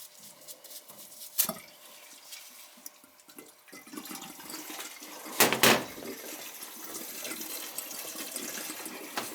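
Water running out as the hot-water heating boiler is drained down, the flow growing stronger about four seconds in. A sharp knock comes about a second and a half in, and a louder clatter about five and a half seconds in.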